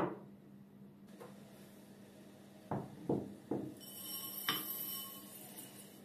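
Glassware knocking on a wooden cutting board: one sharp knock, then three quick ones. About four seconds in, dry green lentils are poured from a small glass into a glass bowl, a short rattling rush with the bowl ringing, over a low steady hum.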